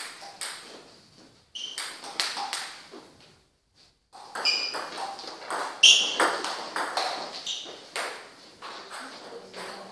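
Table tennis ball struck by rubber bats and bouncing on the table in quick doubles rallies: a run of sharp pings and clicks, with a short break about three seconds in.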